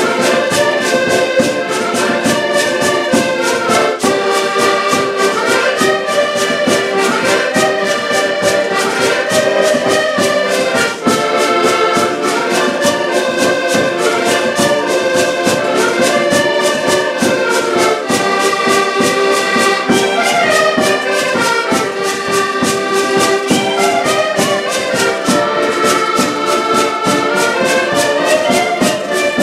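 Several button accordions playing a folk tune together in chords, with a hand-held drum beating a steady rhythm under them.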